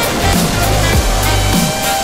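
Electronic dance music with heavy bass and a steady beat.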